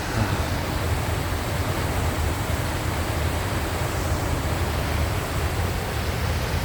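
Highland river rushing over rocks far below a steep drop: a steady, unbroken sound of fast-flowing water with a deep rumble.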